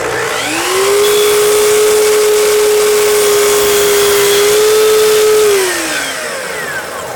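Festool Kapex sliding miter saw motor spinning up to a steady, loud whine while the blade makes a 45° miter cut through a small piece of wooden trim molding. The pitch drops slightly under load partway through, and the whine falls away as the blade winds down near the end.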